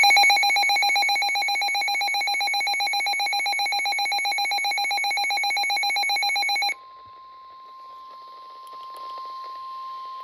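A loud, rapidly pulsing electronic alert tone with a buzzy, ringing sound for nearly seven seconds, cutting off abruptly. Then NOAA Weather Radio's steady 1050 Hz warning alarm tone sounds more quietly over faint hiss, signalling that a warning is about to be read.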